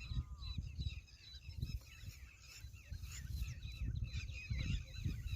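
A chorus of many small birds chirping and chattering densely, with an uneven low rumble underneath.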